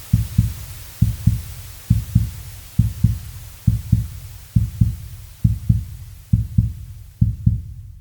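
Heartbeat sound effect: a steady lub-dub double thump repeating a little over once a second, over a faint hiss.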